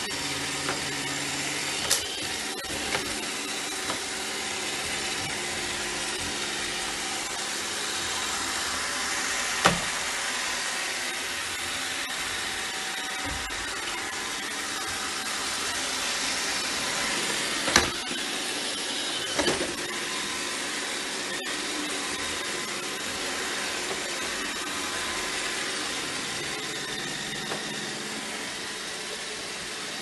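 iRobot Roomba 605 robot vacuum running: a steady whirr from its motor and brushes, broken by a few sharp knocks, the loudest about ten and eighteen seconds in.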